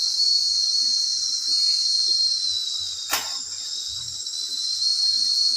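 A steady high-pitched hiss with a thin, steady whistling tone in it, and one sharp click about three seconds in.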